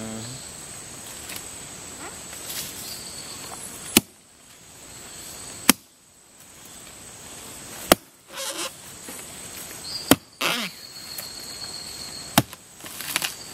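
A long-handled steel blade chopping into a rotting palm trunk: five sharp blows about two seconds apart. A steady high-pitched insect drone runs underneath.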